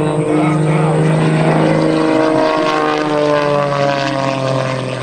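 Super Chipmunk aerobatic plane's piston engine and propeller running hard, its pitch sliding steadily down through the second half as the plane sweeps past on a low pass.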